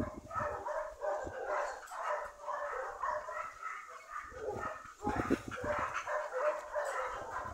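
Several dogs barking in a near-continuous chorus of short barks and yips, with some low rumble on the microphone now and then.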